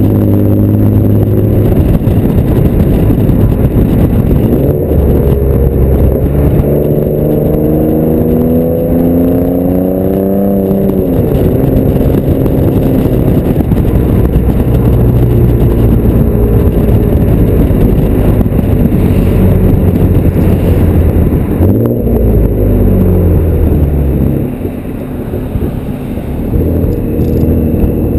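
Exhaust note of a 2010 Ford Taurus SHO's twin-turbo 3.5-litre EcoBoost V6 through a custom cat-back, close to the tailpipe while driving. The note climbs in pitch under acceleration, drops off about eleven seconds in, then runs steadily before a shorter climb a few seconds before the end, with wind rushing over the microphone.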